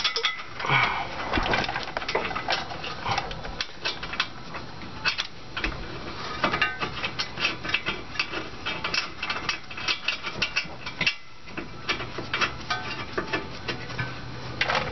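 A brake caliper being slid over a disc rotor and wiggled into place to line up its mounting bolt holes: many irregular metal clinks, taps and rattles.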